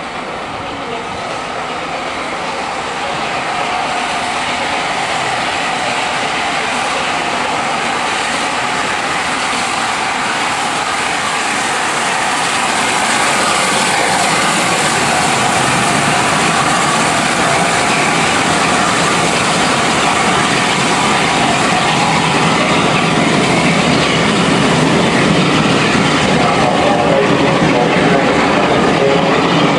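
LNER A4 three-cylinder 4-6-2 steam locomotive 60007 'Sir Nigel Gresley' and its coaches passing through at speed as a steady noise. It grows louder over the first few seconds and is loudest from about 13 seconds in, as the engine comes alongside, and stays loud while the coaches go by.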